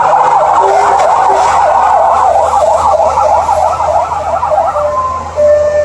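Fire truck siren yelping: a fast rising-and-falling wail, about four sweeps a second.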